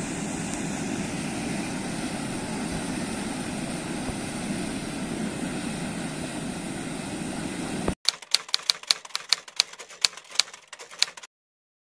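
Steady rushing of water churning up from a reservoir outlet, cut off abruptly about eight seconds in. A typewriter sound effect follows, a rapid run of keystroke clicks lasting about three seconds.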